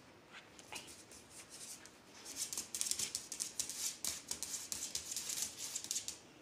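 A dog's claws scraping rapidly on a concrete floor as it paws and digs at it: a few light scratches at first, then from about two seconds in a dense, fast run of scrapes for some four seconds.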